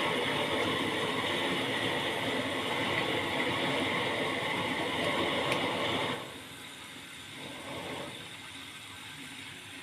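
Gas water heater running with water flowing through it, a steady rushing noise that cuts off sharply about six seconds in, leaving a quieter hiss.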